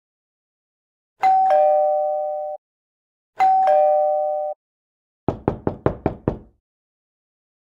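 A doorbell rings twice, each a falling two-note ding-dong chime, then a door is knocked on six times in quick succession.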